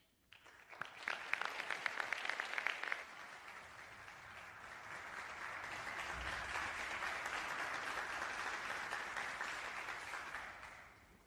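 Audience applauding. It begins with distinct, scattered claps, then grows into a denser, steady applause that dies away just before the end.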